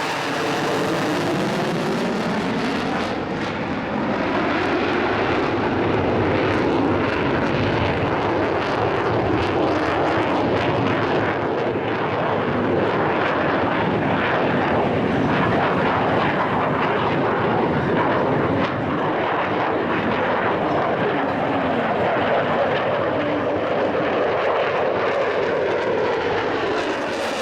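Boeing F/A-18F Super Hornet's twin GE F414 afterburning turbofans running through a display pass with a continuous jet roar. The roar takes on a sweeping, phasing tone near the start and again near the end as the jet closes in and pulls away.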